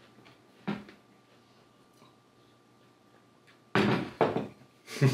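A few short knocks and thuds: one faint one about a second in, then a loud cluster near the end, as a glass of water is picked up and handled on a table.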